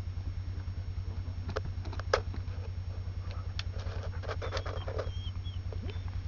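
ATV engine idling with a steady low throb while the quad is manhandled over rocks, with a few sharp knocks, the loudest about two seconds in. A few faint high chirps come near the end.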